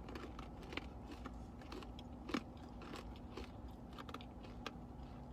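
Crunching and chewing of pumpkin spice white-fudge-coated pretzel twists, a scatter of small crisp cracks with a sharper bite about two and a half seconds in, which the taster takes for a stale pretzel.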